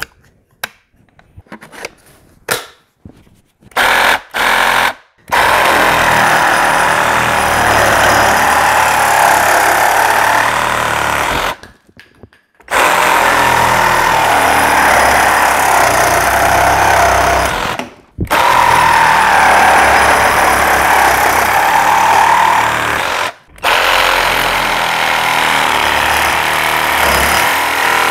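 Cordless reciprocating saw cutting. It gives two short trigger pulls, then makes four long cuts of several seconds each, with brief pauses between them.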